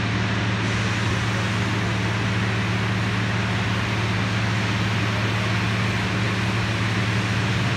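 Automatic car wash tunnel machinery running: a steady, even hum of motors under a broad hiss.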